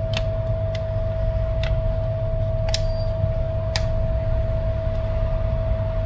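Plastic clips of a smartphone's housing snapping into place as it is pressed shut by hand: about five short sharp clicks in the first four seconds, over a steady electrical hum with one constant tone.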